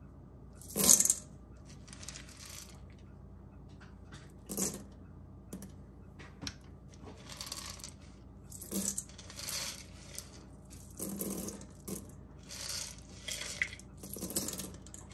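Dry pinto beans being sorted by hand: tipped from a plastic tub into the palm and dropped into a metal colander, a dry clatter of hard little beans in irregular bursts. The loudest burst comes about a second in.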